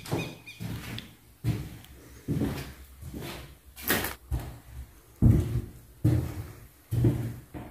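Footsteps walking at a steady pace indoors, a dull thud a little under once a second, with one sharper click about halfway through.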